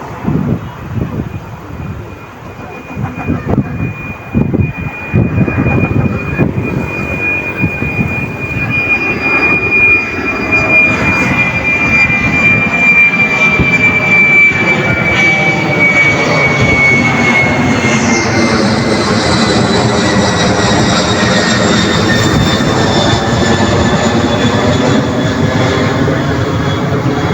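Jet airliner passing close: its engine noise builds over the first ten seconds or so, then holds loud, with a high turbine whine that slowly falls in pitch. About two-thirds of the way through, a higher whine drops in pitch as it goes by.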